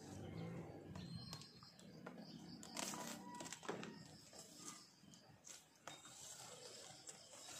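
Faint rustling of leafy kamias branches, with a few light clicks and snaps, the clearest about three seconds in.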